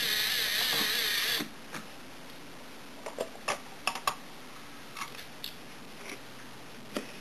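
A LEGO Power Functions electric motor whirring with a wavering pitch for about a second and a half, then stopping. Scattered light clicks of plastic LEGO parts follow as the model is handled.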